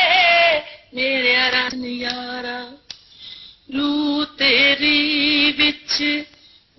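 A woman singing a Punjabi film song in long held notes, some wavering with ornament, in phrases broken by short pauses about a second in, around three seconds in and near the end.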